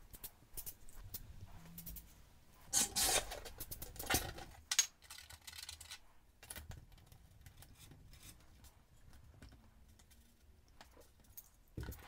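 Faint scratchy rubbing and light clicks of small model locomotive parts being handled on a work surface, loudest in two short scrapes about three and four seconds in.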